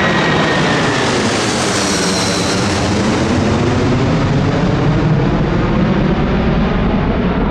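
Boeing 747-400's four Rolls-Royce RB211 jet engines at takeoff power: loud, steady engine noise from the departing jumbo jet. The high hiss is strongest about two seconds in, then fades as the plane moves away.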